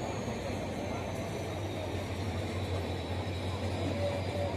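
Passenger express coaches rolling slowly past as the train departs: a steady low rumble with a faint high whine that slowly drops in pitch.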